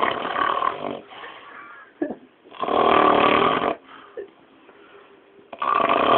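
A man snoring loudly in a deep, passed-out drunken sleep: three long rasping snores, each about a second long and about three seconds apart, with quieter breathing between.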